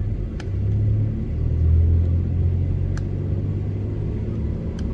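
Pickup truck's engine and road rumble heard from inside the cab, swelling as the truck speeds up about a second in and then holding steady. A few faint clicks sound along with it.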